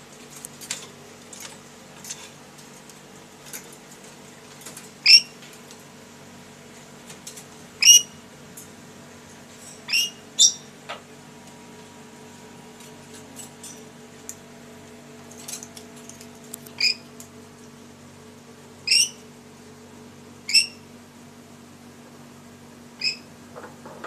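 A lory giving short, shrill, high-pitched calls, about a dozen at irregular intervals with a few softer chirps between them.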